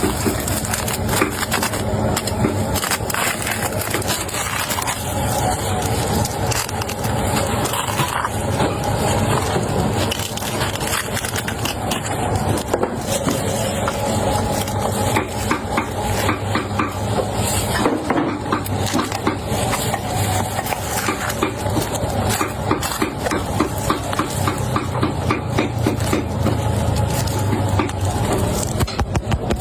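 Knife blades chopping meat on a wooden board, rapid repeated strokes that run on without a break, mincing the meat by hand.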